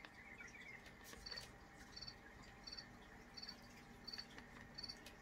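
Baby bouncer's electronic sound unit playing a nature-sound track: short, high double chirps repeating evenly about every 0.7 s. It is faint because the unit's batteries are low.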